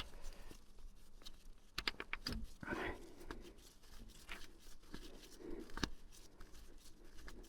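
Quiet handling noise: scattered light clicks and knocks with faint rustling, a few sharper taps a couple of seconds in and again near six seconds.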